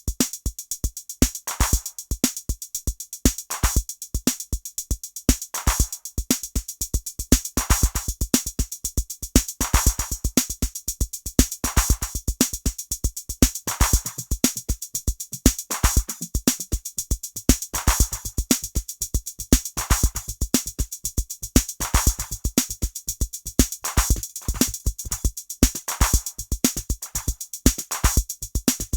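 Electronic drum-machine beat played through Ableton Live 11's Spectral Time effect, a spectral delay. It runs as a dense, fast, stuttering stream of short, clicky hits with little sustained pitch.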